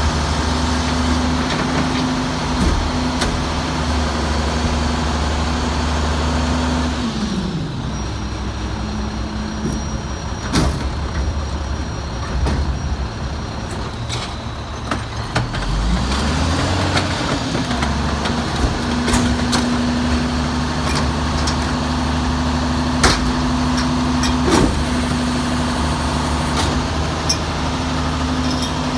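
A Mack MR garbage truck's diesel engine is held at raised revs to drive the hydraulics of its Leach rear-loader packer. The revs fall away about seven seconds in and climb back up around sixteen seconds, with scattered metal clanks from the hopper and dumpster.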